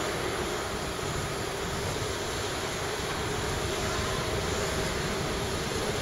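Wuppertal Schwebebahn suspension railway car approaching along its overhead steel track: a steady rumble from its running gear, with a faint whine coming in about halfway through.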